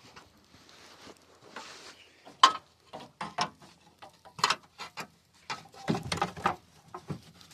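Hand tools working a stuck bolt in the engine bay: a run of irregular metallic clicks and knocks, the loudest a few seconds in.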